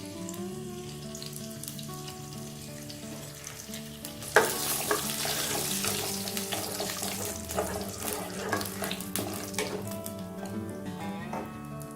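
Whole spices and crushed pepper and fennel hitting hot oil in a pan about four seconds in, then sizzling with many small crackles as they fry. Background music plays throughout.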